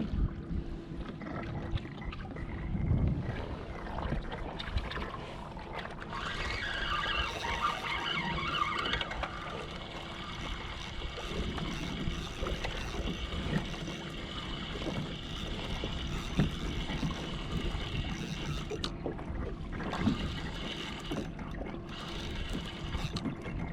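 Water and wind noise around a kayak at sea, a steady low rumble with small splashes. From about six seconds in, a higher whirring joins for some thirteen seconds, then drops away.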